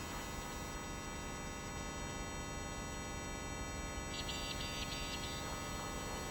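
Electronic synthesizer music: a dense, steady drone of many held tones over a low rumble. A little after four seconds in comes a brief run of short, high beeping pulses.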